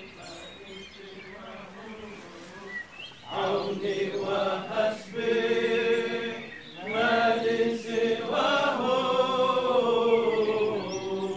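A group of men's voices chanting a devotional chant together in long held notes, coming in about three seconds in, with short breaks between phrases.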